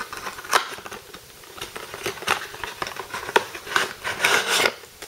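Hands opening and handling a cardboard product box and its contents: a string of sharp clicks and knocks, with a denser rustling of packaging about four seconds in.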